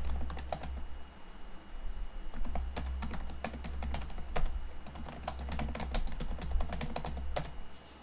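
Typing on a computer keyboard: a run of irregular key clicks over a low steady hum.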